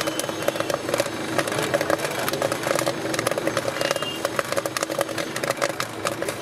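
Popcorn popping fast in a lidded metal pot, a dense crackle of many small pops, over a steady hum.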